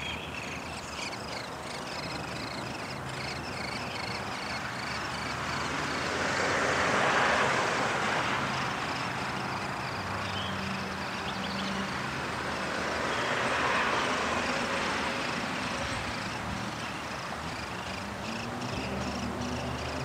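Outdoor ambience: a steady background hum with two swells of rushing noise, each rising and fading over a few seconds, about a third and two thirds of the way through, and faint scattered bird chirps.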